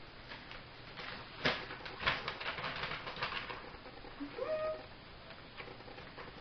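Sheets of paper rustling and crackling as they are handled and flipped, busiest in the first half, followed by a brief rising hum a little past the middle.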